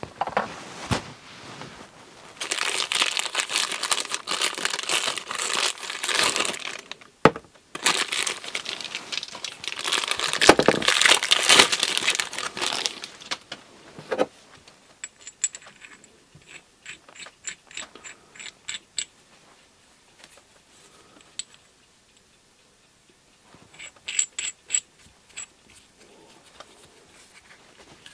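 Plastic bag crinkling and tearing in two long stretches as a small tie rod end puller is unwrapped. Later come sparse light clicks of the steel puller parts being handled.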